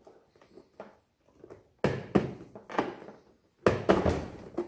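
Plastic outer shell of a Quigg bread machine being pried and pulled off its frame: faint ticks, then a few sharp plastic clacks and rattles as the clips snap loose, the loudest near the end.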